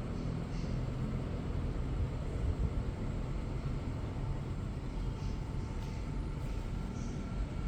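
Split air conditioner (LG SN09LTG indoor unit with a National CU-903KC R22 outdoor unit) running: a steady low rumble with a faint hum.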